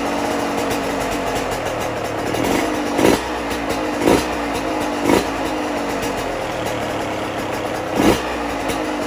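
Yamaha YZ125X 125 cc two-stroke single idling through an FMF Factory Fatty expansion chamber and silencer, with four short throttle blips: three about a second apart, then one more near the end.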